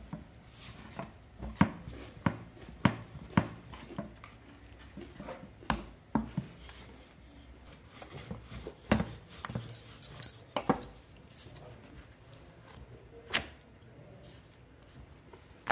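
Rolling pin rolling out mathri dough on a wooden board: irregular knocks and clacks as the pin bumps and rolls across the board, about half a dozen louder ones among softer taps.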